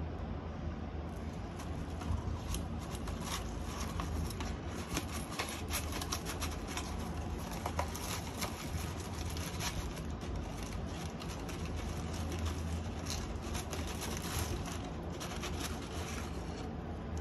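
Paper crinkling and rustling as hands handle a small paper pouch and pick at its contents: an irregular run of short, crackly scratches, over a steady low hum.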